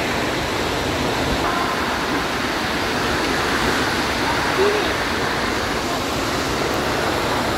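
Steady rush of splashing water in a large indoor pool hall, with water gushing from a tube slide's outlet into the pool. Faint voices of swimmers mix in.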